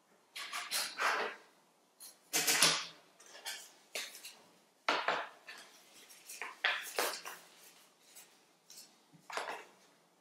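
Folded paper origami pieces handled and set down on a tabletop: paper rustling and light knocks in about six irregular bursts, the loudest about two and a half seconds in.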